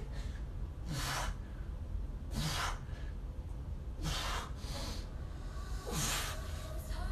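A man breathing hard with effort, four heavy breaths about every one and a half to two seconds, while straining to hold a back-bend exercise.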